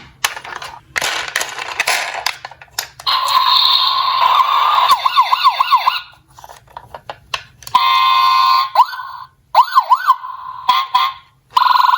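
Electronic toy emergency-vehicle sirens sounding one after another: a wavering siren, then a fast yelp, a few single wail sweeps, and a steady two-tone near the end. Clicks and rattling fill the first three seconds.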